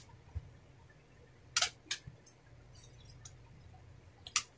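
Several short, wet bites and slurps into juicy watermelon slices, with quiet pauses between them.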